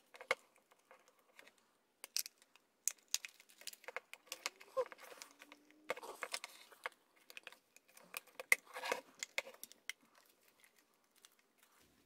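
Scattered light plastic clicks, taps and rustles as the blow dryer's plastic housing and end cover are handled and pressed back into place, with a faint brief squeak near the middle.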